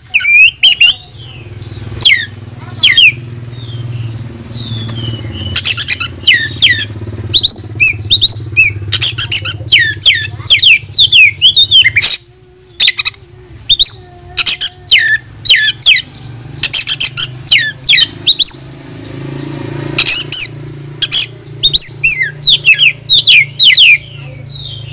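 Oriental magpie-robin singing in full voice: fast runs of loud, sharp whistles, slurred notes and harsh rattles, with a short pause about twelve seconds in. It is the agitated challenge song of a bird calling out a rival. A steady low hum runs underneath.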